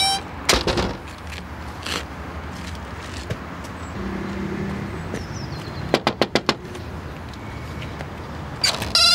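A wooden door with glass panes shut with a bang, then a steady outdoor background hum, then about four quick knocks on the same door.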